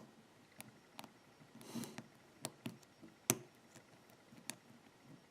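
Lock pick working the serrated pin tumblers of an American padlock under tension: scattered small clicks as pins set and slip, with a brief soft scrape before two seconds in and the sharpest click a little after three seconds.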